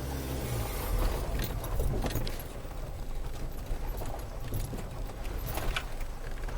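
Land Rover Freelander 2 engine running at low revs, heard from inside the cabin, with repeated knocks, clicks and rattles as the vehicle works over rough ground.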